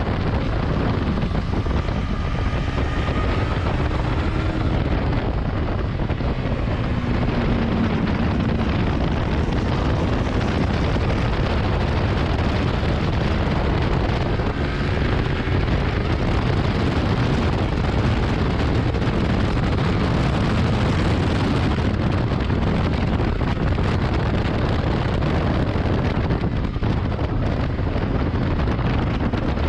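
2019 Yamaha R6's inline-four engine running hard on track, its pitch rising and falling, under heavy wind rush over the microphone.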